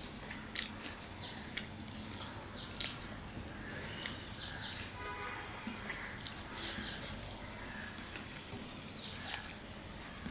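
Close-up chewing and wet mouth smacks of a man eating flatbread and mutton curry by hand, with sharp smacks now and then, the loudest about half a second in and near three seconds in. Birds chirp in the background, with short falling calls recurring.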